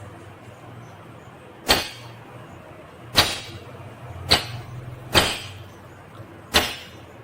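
Indian ringneck parakeet giving five short, sharp, harsh screeches, spaced about a second apart.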